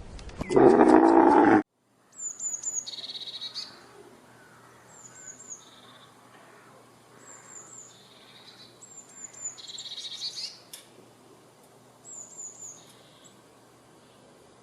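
A loud, deep animal roar that cuts off abruptly about a second and a half in, then a small songbird singing a repeated phrase: three or four quick high chirps followed by a lower trill, about every two seconds.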